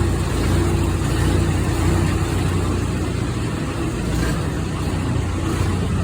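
Clayson M122 combine harvester's diesel engine running steadily at an even speed.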